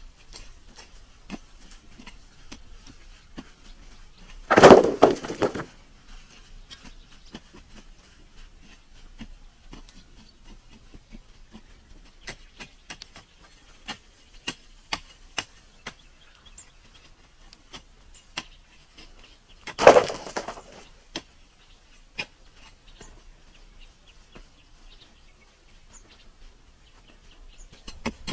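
Hand building work on a dirt site: two loud clattering crashes, each about a second long, about five and twenty seconds in, with scattered light knocks of wood and tools between them.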